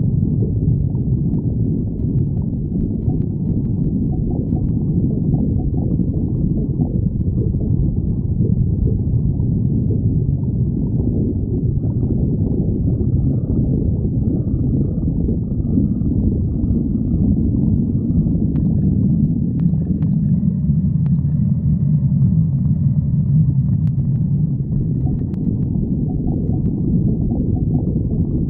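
Stomach growling: a long, continuous low rumble with gurgling. About two-thirds of the way in it turns deeper and smoother for several seconds.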